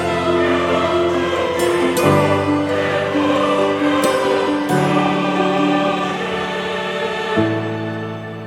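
Background music: a slow piece with choir-like sustained vocal chords that change every couple of seconds.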